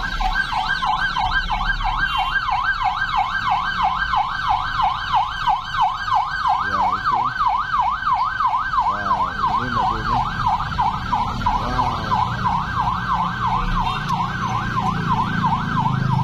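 Emergency vehicle siren in a fast yelp, the tone sweeping rapidly up and down about four times a second without a break, over a low vehicle rumble.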